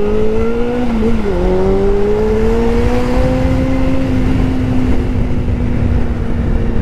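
Motorcycle engine accelerating, its pitch rising, dipping sharply about a second in at a gear change, then climbing again and holding steady as the bike cruises, with wind and road noise throughout.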